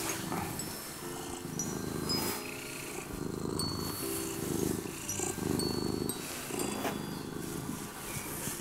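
An orange-and-white cat purring close up: a low, steady rumble that swells and eases roughly once a second.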